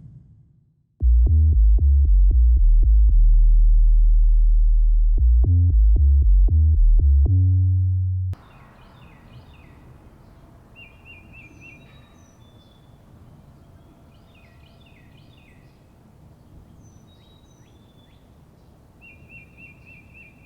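A loud electronic synth bass pattern of short stepped low notes, about four a second, cuts off abruptly about eight seconds in. A quiet outdoor ambience follows, with birds chirping and a rapid high trill heard twice.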